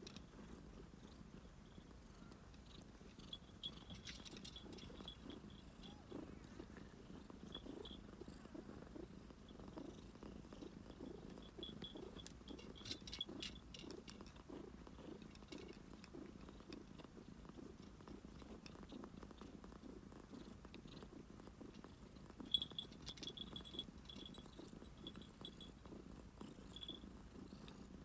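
A cat purring softly and steadily, with one brief sharp click late on.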